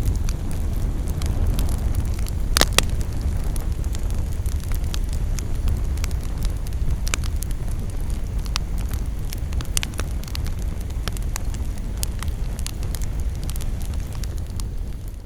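Wood campfire burning, crackling and popping irregularly over a steady low rumble, with one loud pop about two and a half seconds in.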